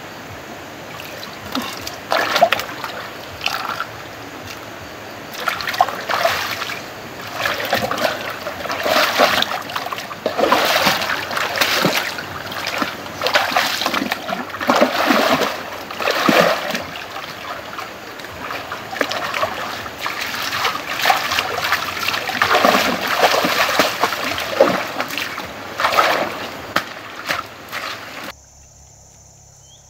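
Hands splashing and sloshing through shallow muddy water in irregular bursts as someone gropes along the bottom for fish. The splashing cuts off suddenly near the end.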